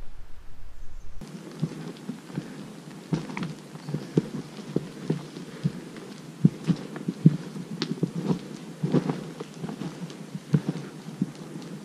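Footsteps on a trail: an uneven run of short thuds and scuffs, a few per second, starting about a second in.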